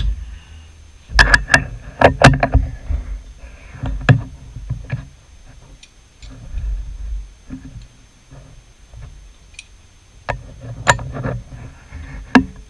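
Sharp metallic clicks and knocks from hands working a small metal lathe's four-jaw chuck and the part held in it, with the lathe stopped. The knocks come in clusters: a quick run about a second in, a few more around two and four seconds, and another group near the end.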